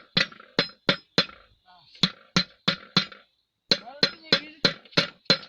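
Hammer striking steel about three times a second in three short runs, each blow ringing with a bright metallic tone, during work on a broken disc-plough bearing.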